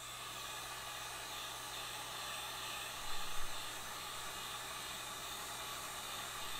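Heat gun blowing a steady hiss of hot air to soften 3D-printed supports. It switches on as the sound begins and swells briefly about three seconds in.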